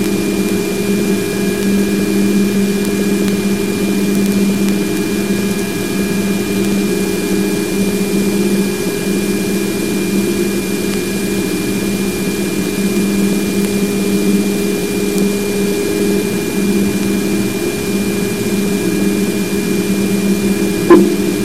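Raw wideband plasma wave waveform from Voyager 2's plasma wave instrument near Neptune, played as audio: a steady hiss with a strong low hum, a constant 2.4 kHz tone that comes from the spacecraft's power supply, and a fainter steady tone below it. A single sharp click comes near the end.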